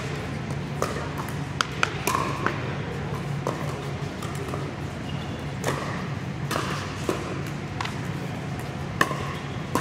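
Pickleball paddles striking hard plastic balls and balls bouncing on the court: sharp, hollow pops at irregular intervals, some faint, over a steady low hum in an echoing indoor hall.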